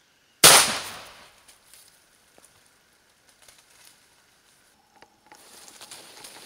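A single shotgun shot about half a second in, loud and sharp, dying away over about a second. Faint rustling follows near the end.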